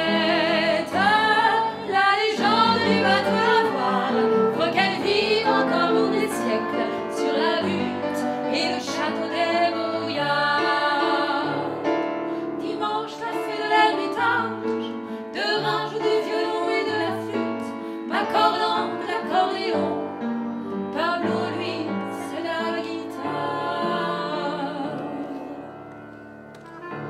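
Women singing a cabaret song with vibrato, over piano accompaniment. The music grows quieter near the end.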